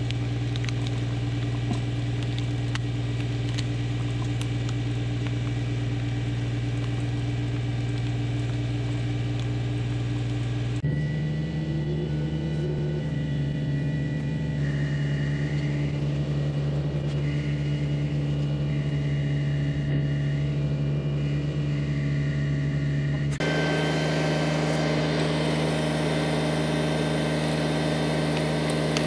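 John Deere 755 compact tractor's three-cylinder diesel engine running steadily. Its pitch steps up abruptly about a third of the way through and its sound changes abruptly again past two-thirds.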